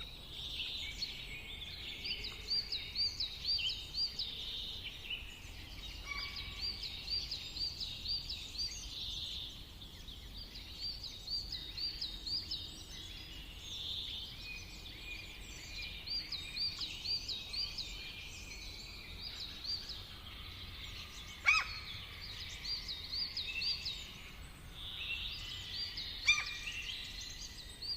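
Several songbirds singing, one repeating a quick run of high chirped notes every few seconds. Two sharp clicks stand out, one a little past the middle and one near the end.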